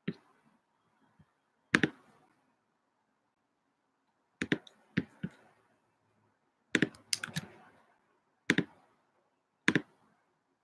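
Irregular clicks and key taps at a computer, a single click or a quick pair or three at a time, with gaps of a second or more between: someone typing and clicking out messages.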